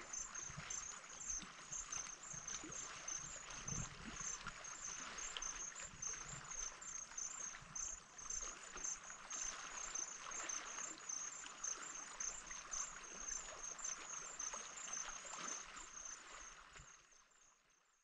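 Small waves lapping gently on a rocky lake shore, with an insect chirping in a steady high pulse about three times a second. The sound fades out near the end.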